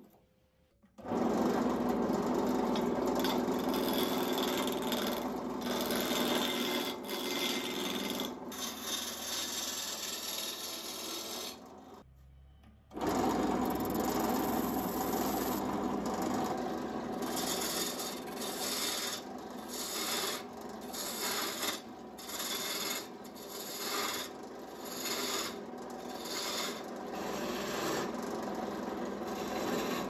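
Abrasive rubbing on a workpiece. A steady scraping for about eleven seconds, a short pause, then even back-and-forth strokes a little over one a second.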